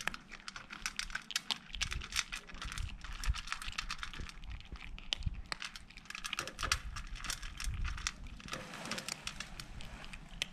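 Kittens crunching dry cat kibble from a plate, heard close up: a fast, irregular stream of crisp crunching clicks.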